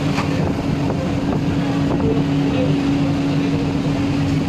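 Steady hum of running industrial laundry machinery, one even tone with a lower drone beneath it. A few faint knocks sound in the first two seconds as wet garments are loaded into the hydro-extractor's steel basket.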